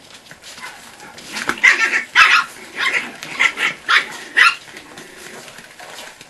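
Chihuahuas barking: about seven sharp barks in quick succession between about one and a half and four and a half seconds in.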